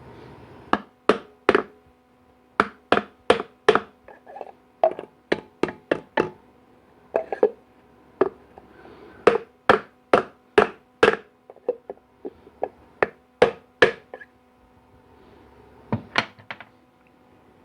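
Hammer tapping on transmission parts in short runs of three to five sharp blows with brief pauses between, about thirty blows in all, over a faint steady hum.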